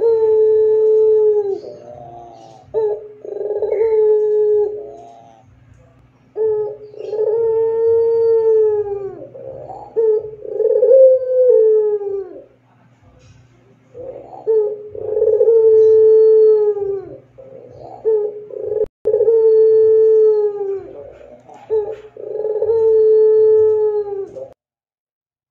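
Puter pelung, a long-voiced variety of domestic Barbary (ringneck) dove, cooing: a series of about seven long, drawn-out coos, each rising and then falling away, with short pauses between them. A faint steady low hum lies underneath.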